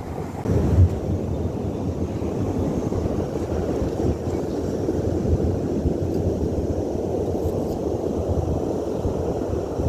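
Wind buffeting the microphone as a steady, irregular low rumble, with a stronger gust just under a second in.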